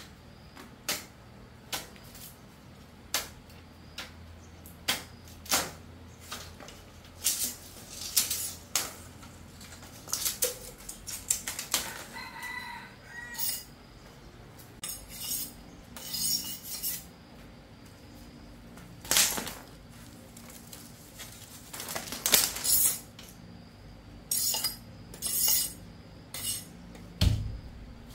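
A series of sharp knocks and clicks, about one a second at first and then irregular, like work with utensils or a knife, with a rooster crowing once about midway.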